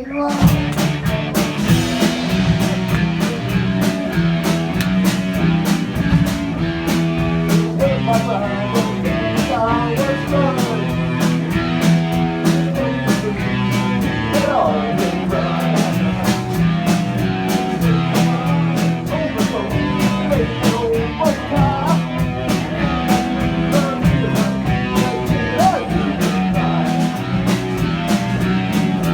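Rock band playing a song with electric guitar, drums and singing, at a steady driving beat.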